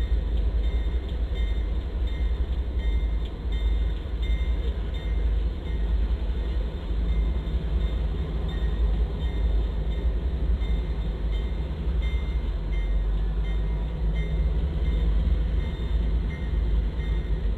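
A freight train's consist of several diesel-electric locomotives passing, engines running with a steady low rumble and faint ticks from the wheels on the rails.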